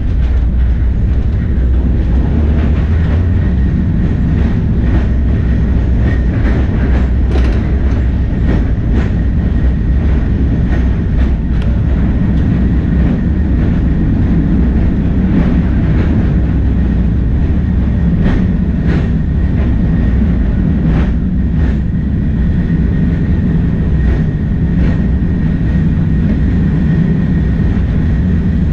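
Heritage electric tram running on street track, heard from inside its driver's cab: a steady low rumble with irregular clicks and knocks from the wheels on the rails, and a faint steady high whine.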